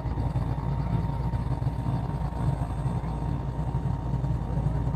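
Small Robinson helicopter running on the ground, a steady low engine-and-rotor rumble with no change in pitch or level.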